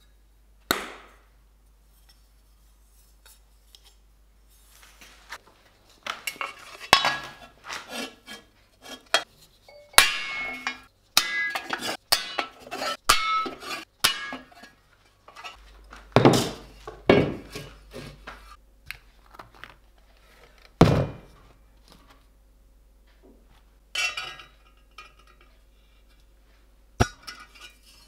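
Metal clinking and knocking from steel pieces and tools being handled, in irregular spurts. A single knock comes at the start, a busy run of clatter follows through the middle, then a few loud knocks, and scattered clinks near the end.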